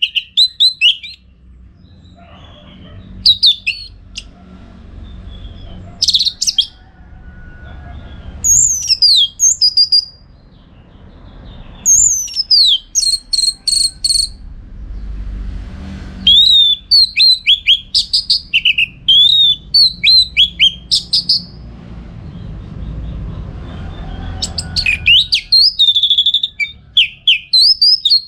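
Orange-headed thrush singing in bursts of fast, varied whistles and chirps, some gliding downward and some rapid repeated notes, with pauses of a second or two between phrases, over a low background rumble.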